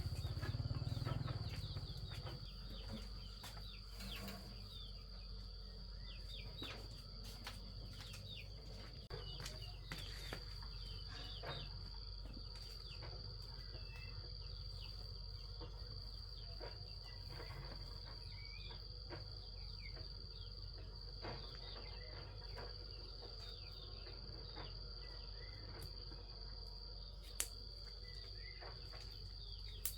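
Insects chirring in one steady high drone, with scattered short clicks and small chirps over it. A low rumble is heard in the first couple of seconds, and a single sharp click near the end.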